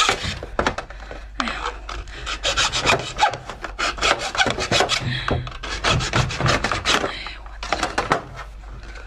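Hacksaw blade cutting through the hard shell of a cooked giant lobster claw, with repeated rasping back-and-forth strokes. The sawing pauses briefly about seven seconds in, then resumes.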